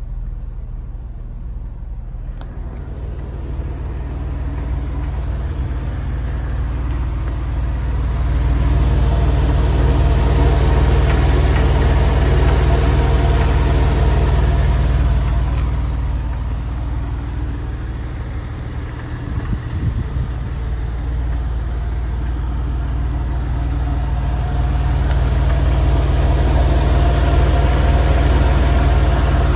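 Porsche 996 Carrera 4 Cabriolet's flat-six engine running steadily, getting louder twice and easing in between. The abnormal noise the owner was chasing has died away again.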